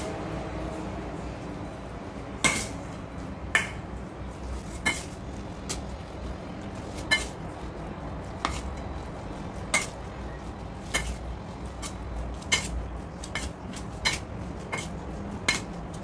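Metal spoon clinking and scraping against a stainless steel bowl while mixing minced meat, with sharp ringing clinks at irregular spacing, roughly one a second.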